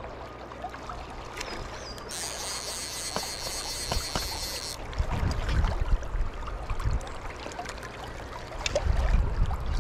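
Shallow river current rushing and rippling, growing louder in two low surges in the second half.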